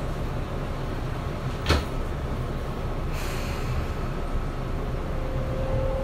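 Inside a Tobu 9050-series electric train standing at a station: the doors shut with a knock about two seconds in, then comes a faint hiss. Near the end the Toyo GTO-VVVF inverter starts a low, rising whine as the train begins to pull away.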